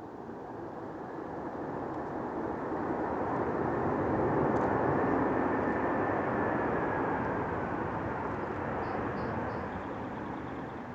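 Airbus A330 jet engines roaring as the airliner rolls down the runway after landing. The roar swells to a peak about halfway through and then fades as the plane passes by.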